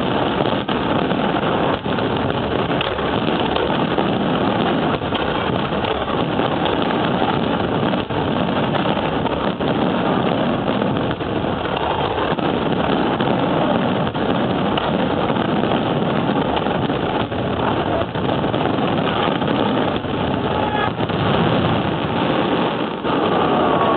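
Fireworks display in a dense barrage: shell bursts and crackling follow so closely that they merge into one continuous din without a break.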